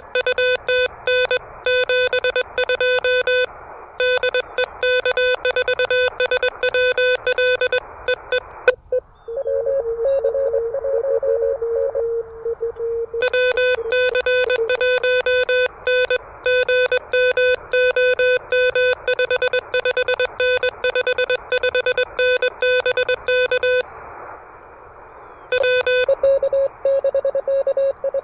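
Fast Morse code from an Elecraft KH1 transceiver: a steady mid-pitched tone keyed rapidly into dots and dashes. About a third of the way in the keying pauses for a few seconds, leaving receiver hiss with a slightly lower, weaker Morse tone in it, and then the fast keying resumes. A shorter pause of hiss comes near the end.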